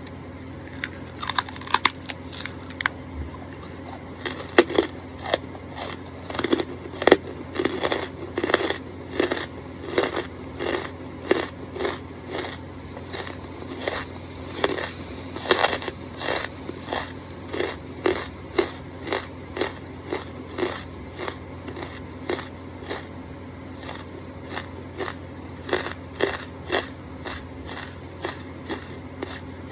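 Close-miked biting and chewing of a block of charcoal: crisp crackling crunches in the first few seconds, then steady chewing at about two chews a second, each one a short crunch, over a faint steady low hum.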